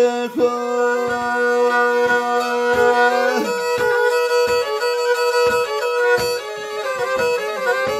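Music: after the last sung word at the very start, a violin plays an instrumental passage of held and stepping notes over a steady beat.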